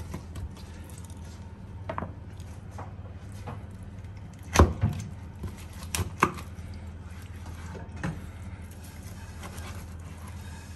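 Kitchen knife carving a roast chicken on a wooden cutting board: a handful of scattered knocks and taps of the blade against the board, the loudest about four and a half seconds in, over a steady low hum.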